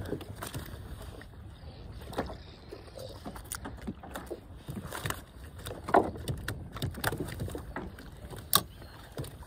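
Small boat on the water: a steady low rumble with scattered knocks and clicks against the hull, and two sharper thuds, about six and eight and a half seconds in.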